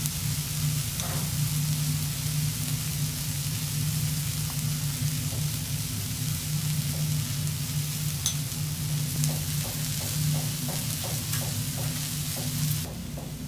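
Vegetable fried rice sizzling on a teppanyaki iron griddle, a steady hiss over a low hum. In the second half comes a quick run of light taps, about three or four a second, as the rice is worked with spatulas; just before the end the hiss drops off sharply.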